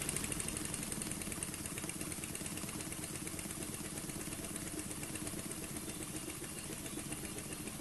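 Home-made oscillating (wobbler) model steam engine running on compressed air, its cylinder exhausting in rapid, even puffs. It gets gradually quieter as the air is turned down.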